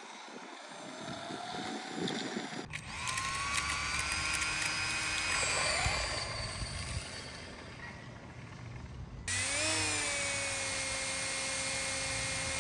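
Electric whine of an RC fan-car dragster's downforce fan and drive motor at speed. A whine rises about three seconds in and holds steady. It breaks off near nine seconds in, when a second whine rises and holds, with a low rumble underneath.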